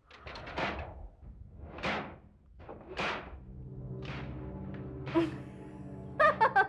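Three swishing whoosh sound effects about a second apart, then a low, steady background-music drone. Near the end a woman gives a short laugh.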